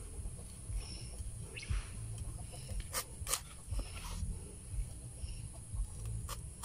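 Chickens clucking, with a few sharp knocks as a machete cuts into a green banana bunch's stalk, two close together about three seconds in and another near the end.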